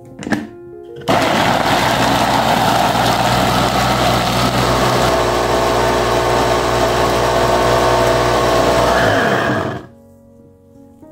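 Kylo 250 W electric food chopper's motor running for about nine seconds, its blades chopping shallots, garlic and chilies into a paste. It starts after a short click and falls in pitch as it winds down and stops near the end.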